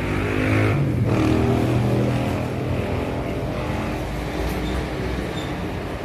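A motor vehicle engine running close by, loudest about a second in and fading after about three seconds.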